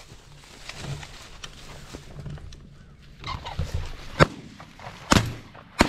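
A pheasant flushing, then three sharp shotgun shots less than a second apart in the last two seconds, the first the loudest.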